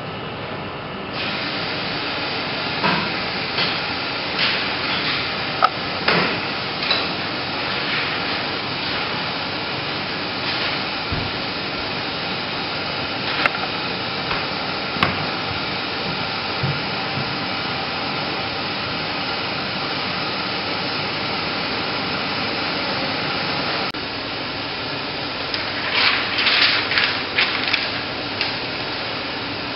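Steady whir and hiss of the Omnimax 15/70 film projection machinery in the booth, getting a little louder about a second in. Scattered sharp clicks and knocks of the operator handling the equipment, with a quick run of them near the end.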